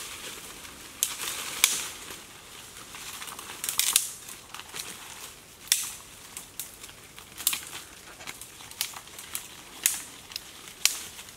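Footsteps crunching through dry leaf litter on a forest path, with irregular sharp snaps and rustles.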